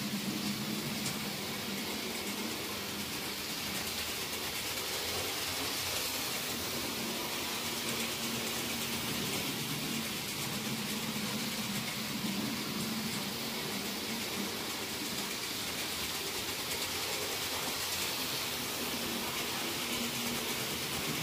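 Model trains running around the track: a steady mechanical hum that swells and fades slightly, over a constant hiss.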